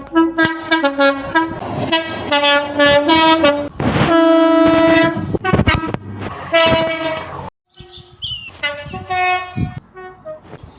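Train air horns sounding a chord in a run of short toots and longer blasts, one held for about a second. About three quarters of the way through the sound breaks off suddenly, and a horn of higher pitch starts up again with a few more blasts.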